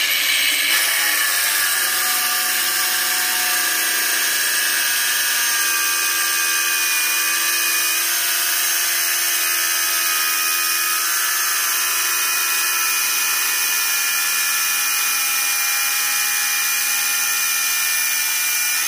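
Cordless Makita-branded angle grinder's cut-off disc cutting into thick steel plate, throwing sparks: a steady high motor whine with grinding hiss. The motor holds its speed under load and does not cut out.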